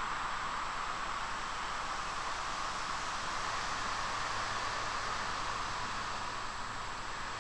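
A steady, even hiss with no separate sounds standing out.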